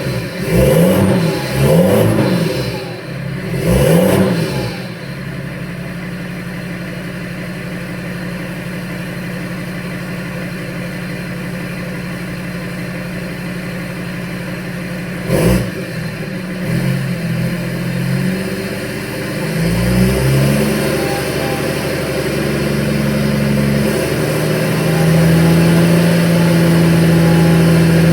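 BMW M57 straight-six diesel running with its silencer and DPF removed (catalytic converter still fitted), giving a loud, raw exhaust note. It is blipped about four times in quick succession, then idles steadily, gets one short sharp blip about fifteen seconds in, and near the end its speed rises and holds higher.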